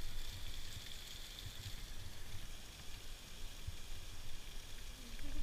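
Steady rushing hiss of a waterfall.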